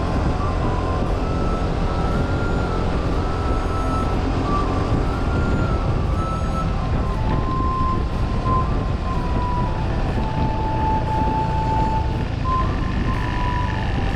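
Suzuki Burgman 200 scooter in motion: steady, dense engine and wind rush. Thin, high held notes step between pitches over the noise.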